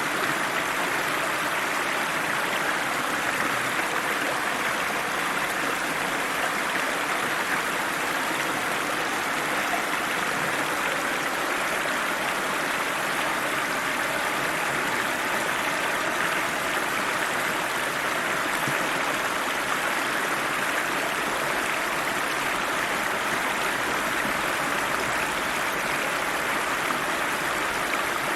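River water rushing and splashing over rocks in a steady, unbroken flow.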